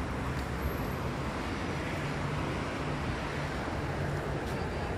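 Steady street traffic noise with a low engine hum.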